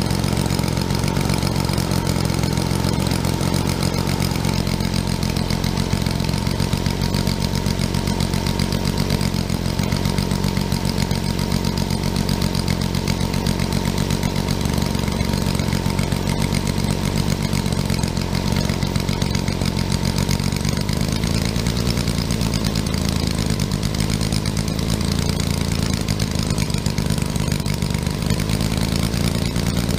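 Homemade 60 cm³ three-cylinder model engine, built after a large ship's diesel, running steadily at a fast, even beat with a faint steady whine over it.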